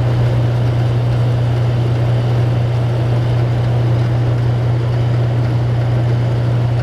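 Sears Kenmore 25357510791 dehumidifier running on max dry and low fan speed: a steady low hum from the compressor with the fan's air rush over it, unchanging throughout.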